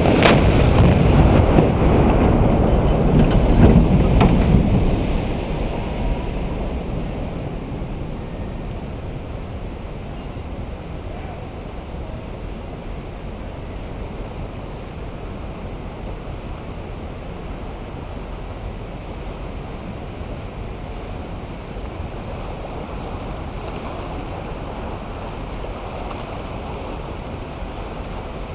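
Explosive demolition charges cutting the old steel truss bridge go off in one sudden blast, followed by loud rumbling that dies away over about five seconds into a steady wash of wind noise.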